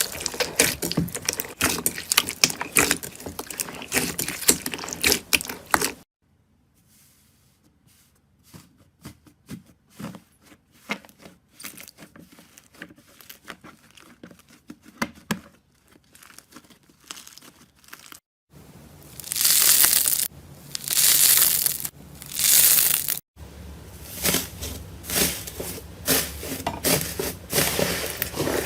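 Slime being handled in a run of short clips: dense crackling and crunching, then a quieter stretch of separate small clicks and pops, then several loud crackling surges as the slime is pressed and pulled, then crackling again.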